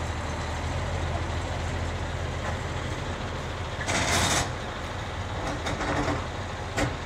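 A large vehicle engine idling, a steady low hum, with a short loud hiss of air about four seconds in.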